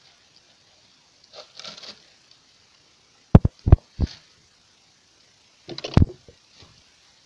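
Brief rustle of bilberry bushes as a homemade berry scoop of bicycle spokes and plywood combs through them, then sharp knocks from the scoop being knocked and handled: four quick ones about three and a half seconds in and a tight cluster near six seconds.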